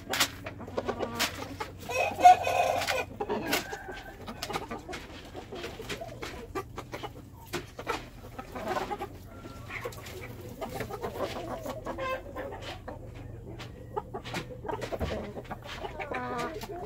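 Superlock gamefowl, a young stag and hens, clucking and calling, with the loudest call about two seconds in. Scattered short taps run through it.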